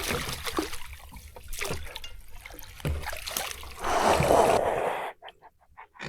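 Water trickling and splashing as a just-landed largemouth bass is handled, with a louder rush of splashing about four seconds in, then a few light knocks.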